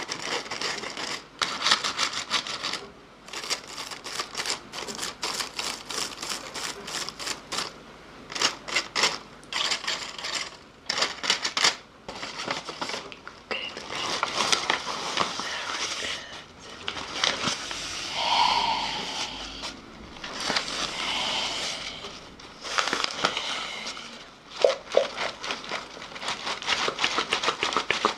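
Close-miked ASMR mouth sounds: rapid, irregular wet clicks and crackles in clusters, with short pauses between them.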